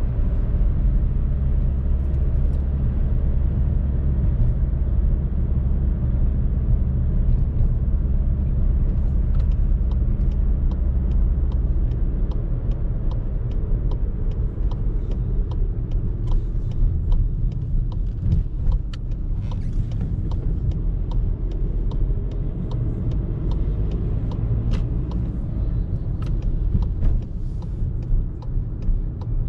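Volkswagen Polo driving in town, heard from inside the cabin: a steady low engine drone and road noise, changing in pitch about twelve seconds in. From partway through, frequent light irregular clicks and ticks sit over the drone.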